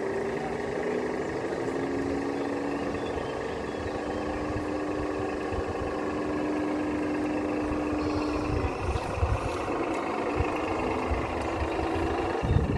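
A radio-controlled model construction machine's motor running with a steady whine that rises slightly at first and stops about nine seconds in. Gusts of wind buffet the microphone underneath, most strongly near the end.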